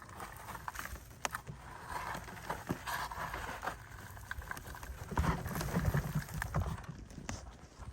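Sweet potato vines and potting soil rustling and crunching as the plant is pulled and worked loose from its pot, with scattered clicks and a louder run of dull thumps about five to seven seconds in.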